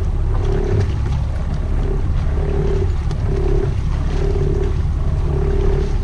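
Boat's engine running with a steady low rumble, water and wind noise over it, while a mid-pitched beep repeats about once a second, each beep about half a second long.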